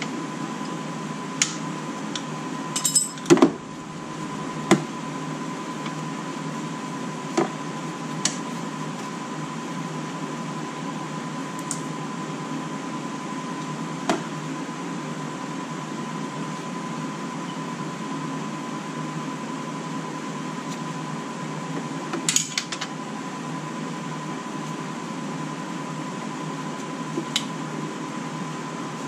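Scattered metallic clinks and taps of a wrench on the brake line fittings at the front caliper as a brake line is being unthreaded and fitted, with a short cluster of clinks about three seconds in and another around twenty-two seconds. A steady hum with a faint steady whine runs underneath.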